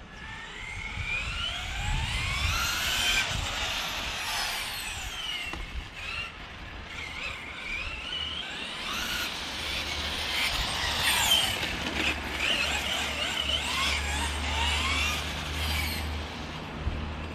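The SSS 230KV brushless motor of an MCD XR5 1/5-scale electric RC car, running on 20S, whining as the car is driven, with the pitch climbing and dropping again and again as it speeds up and slows down.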